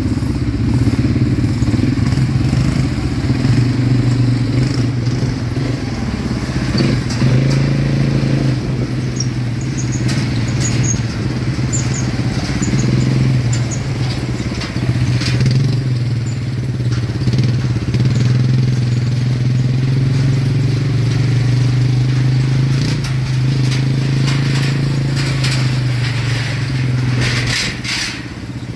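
ATV engine running at a fairly steady speed, with a few short knocks and rattles, most of them near the end.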